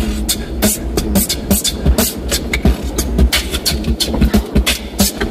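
Vocal beatboxing: a steady beat of mouth-made kick and snare sounds, about two to three strikes a second, over the low drone of the car cabin.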